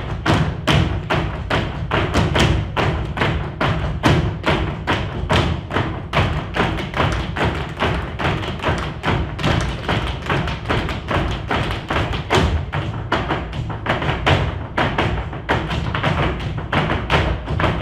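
Dance footwork: a group of dancers' shoes stamping and tapping on the stage floor in a steady rhythm of about three to four strikes a second, with music underneath.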